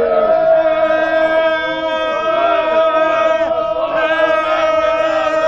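Crowd of football fans chanting together in a crowded train carriage, loud, with many voices holding one long note while other voices slide and shout over it.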